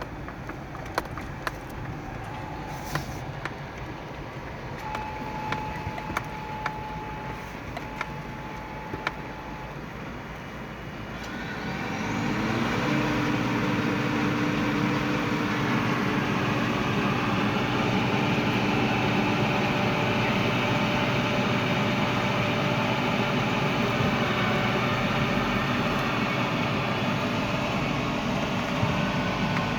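Farm machinery engine running steadily, with scattered clicks. About twelve seconds in it gets much louder, its tone rising and then holding as the machine comes up to working speed.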